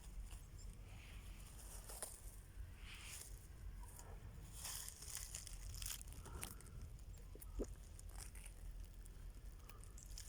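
Irregular rustling and crunching about once a second, with a few sharp snaps, like footsteps through dry forest litter, over a steady low rumble of wind on the microphone.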